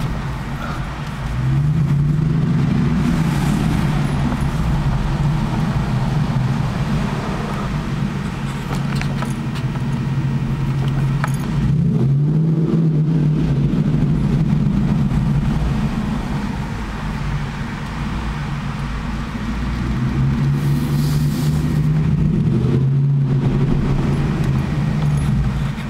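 Jeep Grand Cherokee SRT8's V8 on a new exhaust, heard from inside the cabin while driving, with a deep, loud exhaust note. The engine pulls harder with its pitch climbing about a second in, again near the middle, and twice near the end, easing back in between.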